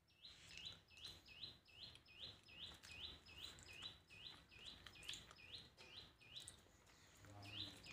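A bird chirping over and over, faint and regular, about two short rising chirps a second.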